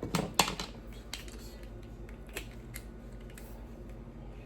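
Sharp clicks and taps of small metal parts and tools being handled while working on a compression driver's screws: a quick cluster of clicks at the start, then a few lighter, scattered ones.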